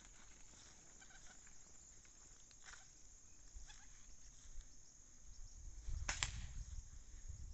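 Faint marsh ambience: a steady high insect hum with soft footsteps through wet grass. A sharp click about six seconds in is followed by low rumbling.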